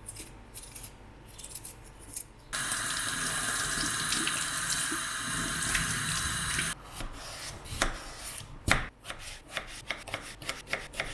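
Kitchen tap running water into a sink for about four seconds, starting and cutting off abruptly. Light clicks and knocks of things being handled come before it and, more densely, after it.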